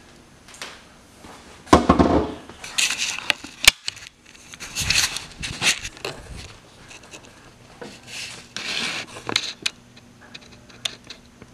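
Irregular clanks, knocks and scrapes of metal parts and the camera being handled during an engine install, loudest about two seconds in, with a sharp click near four seconds.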